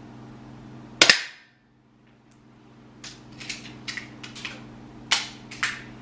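APS-style air pistol firing a single sharp shot about a second in. From about the third second comes a run of small clicks and clacks as the pistol is handled, with two louder clacks near the end.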